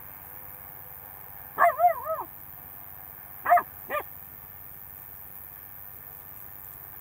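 Alaskan Malamute barking: a quick run of about four short yelping barks, each rising and falling in pitch, then two more single barks about two seconds later.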